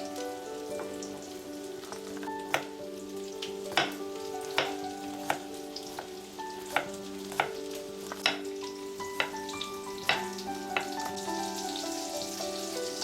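Food frying in a pan: a steady sizzle with about a dozen sharp, irregular clicks or pops, over soft background music.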